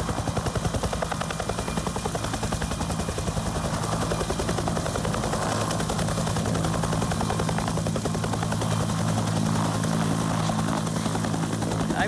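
Bell UH-1H Huey helicopter hovering low as it comes in to land: the fast, even whop of its two-bladed main rotor over the steady drone of its turbine engine.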